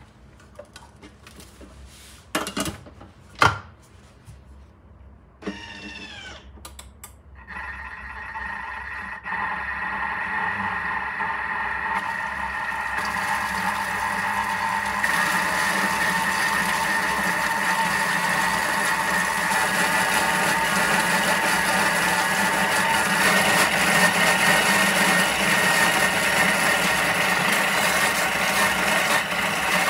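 A few knocks and clicks as the processor bowl is set in place. About seven seconds in, the food processor's motor starts and runs steadily with a constant whine, growing louder over the next several seconds as it blends the pesto again.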